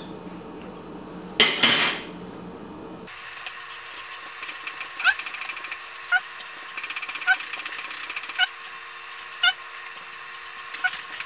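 Hand tools handled on a wooden table, with a loud clatter about a second and a half in. Then a small Torx screwdriver turns screws out of a car radio display unit's casing, giving a short squeak about once a second with light scraping between.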